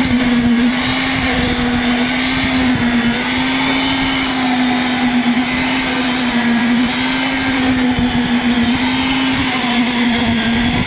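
A machine's motor running steadily, a constant drone with a slight waver in pitch.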